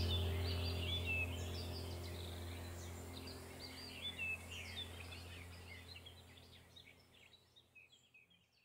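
Birds chirping over a low steady hum, the whole sound fading steadily to near silence near the end.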